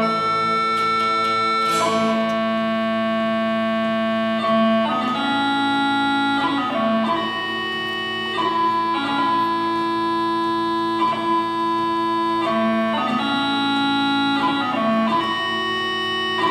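Ceilidh band playing a tune in held, sustained chords that change every second or two, with a few plucked notes near the start.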